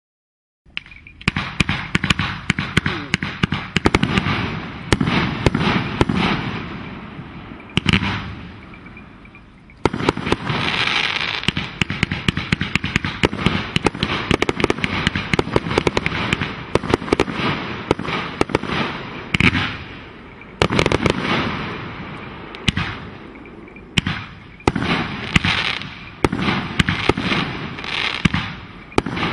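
Fireworks barrage going off in a rapid string of bangs and crackling bursts. It dies away about seven seconds in, starts again suddenly near ten seconds, and dips briefly twice more before carrying on.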